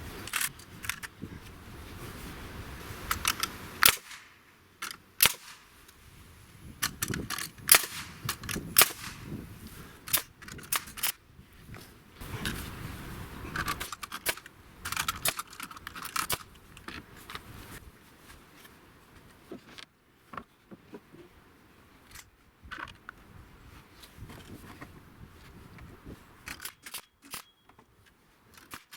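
Irregular sharp knocks and bangs, some coming in quick clusters, from work on a wooden structure.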